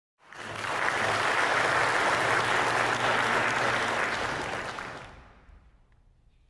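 Audience applauding, starting suddenly and holding steady before fading out after about five seconds.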